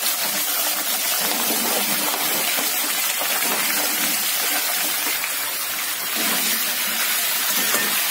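Chopped capsicum and potato tipped into hot oil and cumin in a steel kadai, sizzling steadily as they fry.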